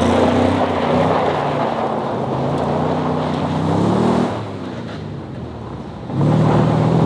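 Old Ford F250 pickup accelerating hard on gravel, its engine revving with the pitch climbing while the rear tyres spin and spray gravel. The engine note drops about four seconds in, then comes back loud and steady about six seconds in.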